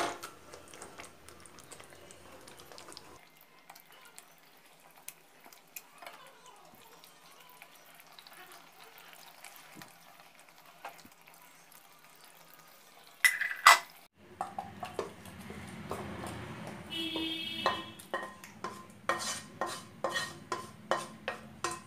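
Soft, faint squishing as the bottom of a steel bowl mashes cooked potatoes and tomatoes for pav bhaji in a nonstick kadai. A loud clatter comes about two-thirds of the way in, followed by a quick run of knocks and scrapes as the mash is scraped out of the pan into a steel pot.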